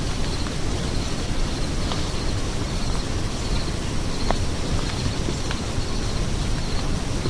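Woodland ambience: a steady low rumble with faint high chirps repeating about once a second, and a single light tick about four seconds in.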